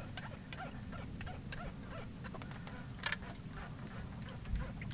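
Spinning fishing reel giving a run of light, irregular ticking clicks, several a second, as the rod and line are worked, over a steady low rumble.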